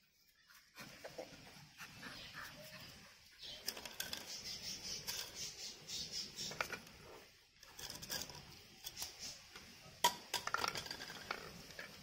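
Pug puppy mouthing and chewing a small rubber ball on a concrete floor: scattered small clicks, taps and scuffles, with one sharper knock near the end.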